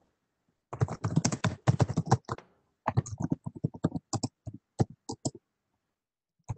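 Typing on a computer keyboard picked up over a video call: a quick run of keystrokes, then slower single taps, a pause, and a few more keystrokes near the end.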